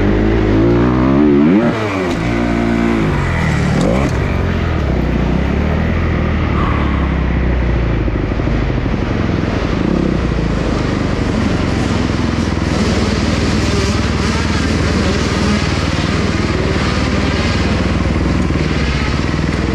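Kawasaki KX250 four-stroke single-cylinder motocross engine, heard close up from a camera mounted on the bike. It revs briefly, its pitch sweeping up and down, then falls away sharply within about two seconds. After that it runs steadily at low revs.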